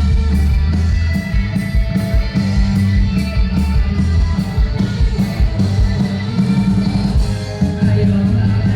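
Rock band playing live: drums, bass and electric guitar with a steady fast beat.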